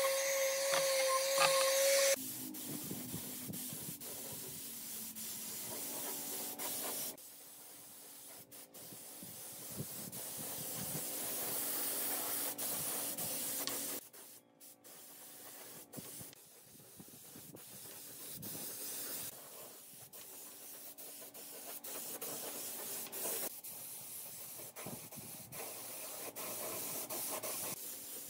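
An electric palm sander runs for the first two seconds or so, then a compressed-air spray gun hisses in several stretches as finish is sprayed onto the wood.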